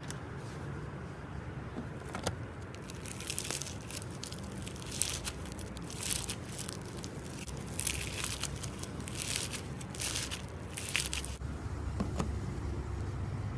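Slime being pressed and worked by hand, crackling in a series of short bursts with a few sharp clicks.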